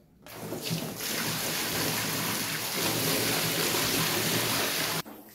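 Water pouring from a plastic bucket and splashing into a small inflatable paddling pool, a steady rushing gush that builds over the first second and stops abruptly near the end.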